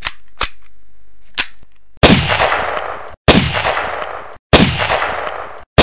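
Gunshot sound effects: three light clicks, then four loud gunshots about 1.2 seconds apart, each with a ringing tail that cuts off abruptly just before the next.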